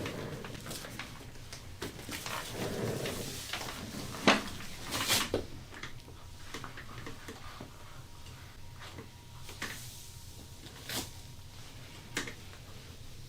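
Handling noises of a hands-on back massage: irregular rubbing and soft knocks, with a sharp click about four seconds in and a louder rubbing sound about a second later.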